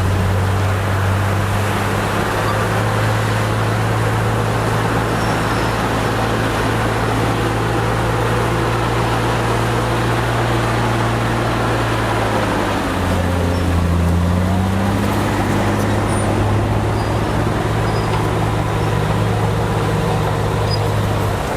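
Bulldozer's diesel engine running steadily under a broad rumble. Its pitch dips and swings up and down a little past halfway, and shifts again near the end.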